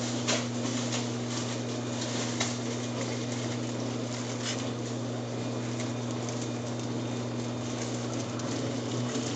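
Plastic bread bag crinkling, with a few light clicks, as the bag is opened by hand, over a steady low hum.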